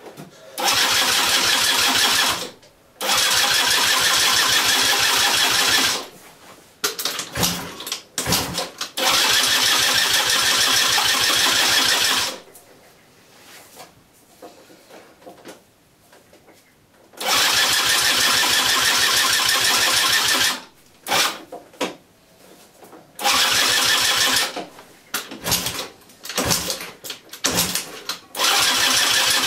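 Yamaha Jog's two-stroke 50 cc engine being cranked over, in four long bursts of two to three seconds each and then a string of shorter ones near the end. It never catches or runs on its own: a non-starting engine.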